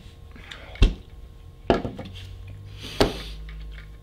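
Three sharp knocks or taps, spaced about a second apart.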